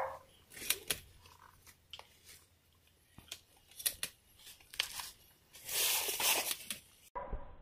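Scattered clicks and crinkling rustles, with a longer rustle about six seconds in. The sound cuts off abruptly near the end.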